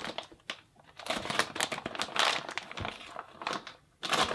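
Crinkling and rustling of the plastic bag around a vacuum-sealed 3D-printer filament spool being handled. It starts about a second in and comes again in a short burst near the end.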